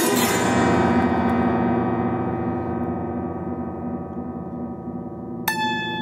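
Zither strings struck together in a loud chord that rings on for several seconds and slowly fades. Near the end a run of single plucked zither notes begins, stepping down in pitch.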